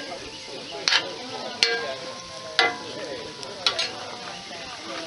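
Metal spoon stirring sliced mushrooms sautéing in a square cast-iron Dutch oven, clinking sharply against the iron four times over a steady sizzle.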